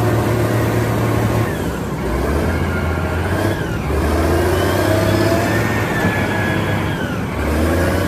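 Large Caterpillar wheel loader's diesel engine working as it dumps a bucket into a dump truck and backs off. The engine note shifts up and down several times as the load changes.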